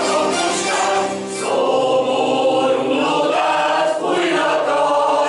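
A choir of women's and men's voices singing a song together.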